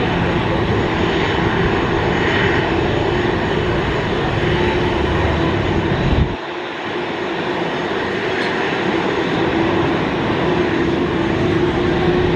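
Jet engines of an Airbus A330-300 (Rolls-Royce Trent 700 turbofans) running steadily as the airliner taxis: a continuous rumble with a steady whine. The deep rumble drops out abruptly about six seconds in while the whine carries on.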